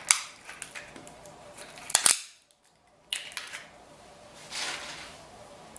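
Crab-leg shells being cracked and snapped apart: a few sharp cracks, the loudest about two seconds in, then softer crackling of shell and wet eating sounds. The audio drops out completely for nearly a second after the loudest crack.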